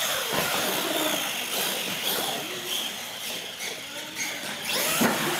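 Electric RC monster trucks whirring as they drive and jump over ramps on a concrete floor, with a thump about five seconds in.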